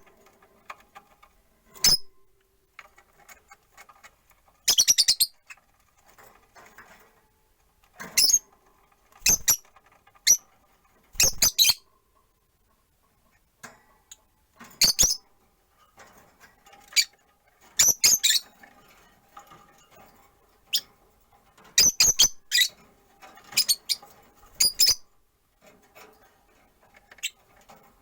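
Rosy-faced lovebirds giving short, sharp, high-pitched chirps, about fifteen scattered calls, some in quick pairs, with quiet gaps between them.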